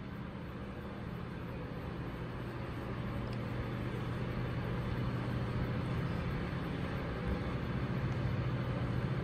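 Lexus TX500h's turbocharged four-cylinder hybrid engine idling with a steady low hum that grows gradually louder.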